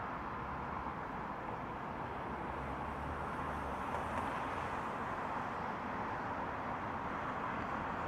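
Road traffic on a multi-lane highway: a steady wash of tyre and engine noise from passing cars, with no single vehicle standing out.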